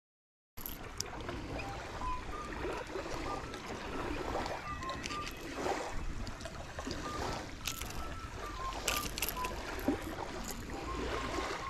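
Small waves lapping and splashing at the water's edge, with scattered sharp clicks as pliers and a fish grip work a topwater lure's hooks out of a caught fish's mouth. Many short high chirps come and go over it. The sound cuts in abruptly about half a second in.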